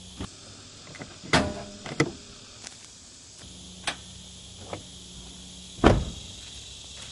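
A series of sharp knocks and clunks, the loudest about one and a half seconds in and near six seconds, over a steady high insect chirr.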